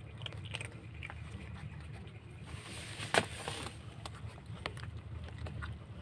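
Several kittens crunching and chewing dry cat kibble off cardboard, heard as scattered small crunchy clicks over a low steady hum. About three seconds in there is a brief rustle with one sharp click, the loudest sound.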